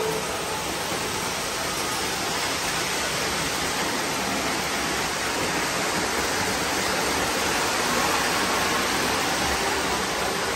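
Model trains running on an O gauge layout: a steady rushing noise.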